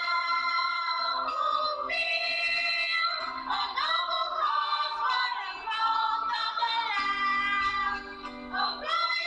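Background music: a song with a singing voice over an accompaniment.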